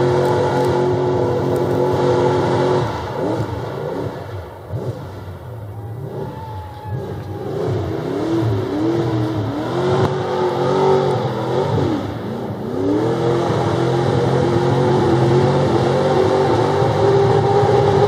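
Mud truck's engine running at high revs, then sagging and revving up and down several times as the truck fights through deep mud, before holding steady at high revs again near the end.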